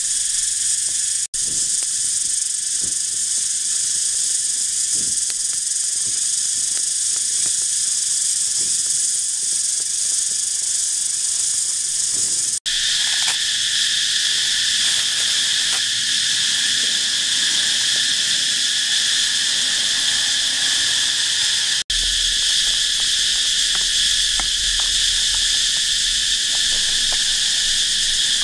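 Loud, steady high-pitched chorus of forest insects droning without a break. It cuts out for an instant three times, and after the last break a low rumble sits beneath it.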